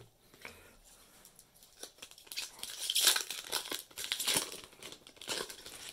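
A foil Magic: The Gathering booster pack wrapper being torn open and crinkled by hand. A run of crackling and tearing starts about two seconds in.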